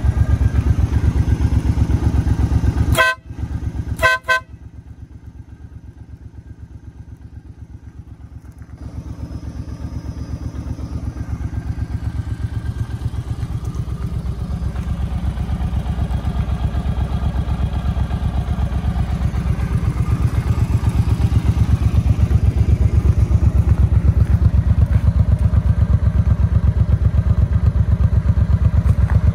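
Suzuki C50 motorcycle's V-twin engine idling with a steady pulse. About three and four seconds in, the horn gives two short beeps. The engine is quieter for a few seconds after the beeps, then grows gradually louder.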